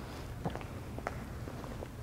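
Faint footsteps and a few light knocks of people walking, over a low steady room hum.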